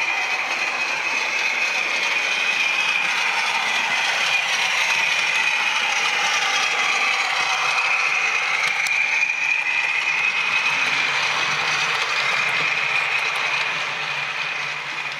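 OO gauge model train running along the track with a steady mechanical whine that wavers slightly in pitch, easing a little near the end.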